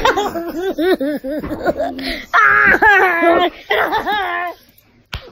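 Children laughing: a quick run of short, high-pitched ha-ha bursts, then longer drawn-out peals of laughter. A short click near the end.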